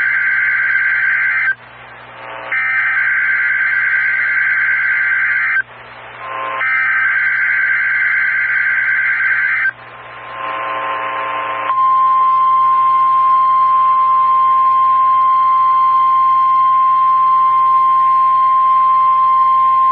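NOAA Weather Radio broadcast signalling a Required Weekly Test. First comes the end of one burst of SAME digital header data, a harsh warbling two-tone buzz. Two more bursts of about three seconds each follow, with about a second of radio static between them, and about two seconds later the steady single-pitch 1050 Hz warning alarm tone starts and holds.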